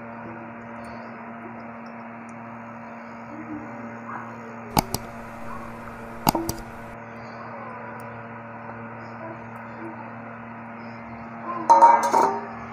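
Steady low electrical hum with two sharp clicks near the middle. Near the end, a stainless-steel bowl clinks and scrapes as it is handled.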